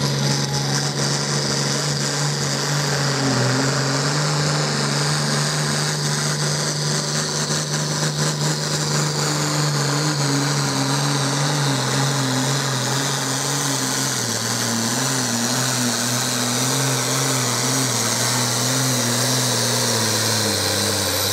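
John Deere 4050's turbocharged six-cylinder diesel running flat out under heavy load while pulling a weight-transfer sled. The engine note holds steady, then sags a little about two-thirds of the way through, with a high whine above it that slowly falls.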